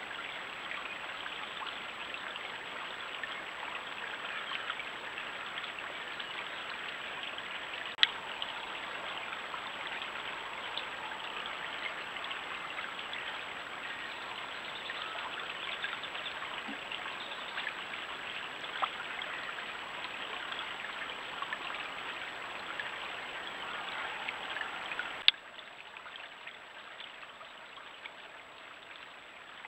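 A shallow stream running over stones, a steady trickling rush. There is a sharp click about a quarter of the way in and another near the end, after which the water is quieter.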